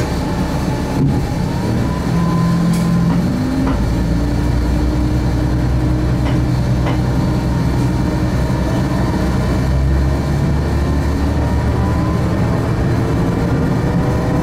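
Diesel railcar running along the line: a steady low engine and running rumble, with whining tones that rise slowly in pitch, once about a second in and again toward the end, and a few short sharp clicks.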